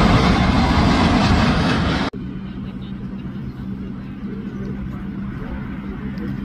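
Jet engine noise of a Boeing 787-9, its Rolls-Royce Trent 1000 engines, passing low overhead on final approach with gear down. The noise cuts off abruptly about two seconds in. It is followed by the quieter, steady rumble and low hum of a more distant airliner descending towards the runway.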